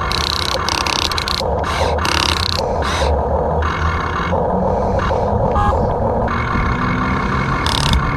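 Small electric motors and gearboxes of RC construction toys whirring in short, start-stop spurts over a steady low hum.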